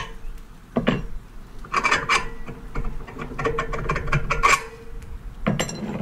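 Long steel bolts being drawn out of freshly drilled holes through aluminum kayak-launch brackets, scraping and rubbing metal on metal in short repeated bursts, with a couple of sharp knocks.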